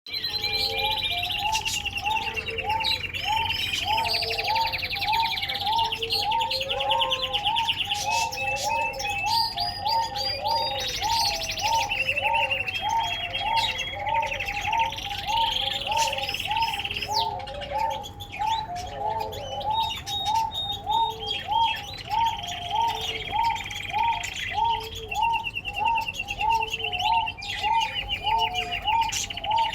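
Domestic canary singing long, varied song of rapid trills and rolling phrases. Beneath it runs a low, very regular repeated call, about one and a half a second, steady throughout.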